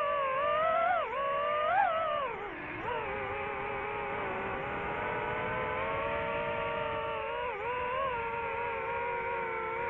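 DJI FPV drone's motors and propellers whining, the pitch swelling and dipping with the throttle over the first few seconds and dropping low near three seconds in. After that it holds a nearly steady tone, with a brief dip near the end.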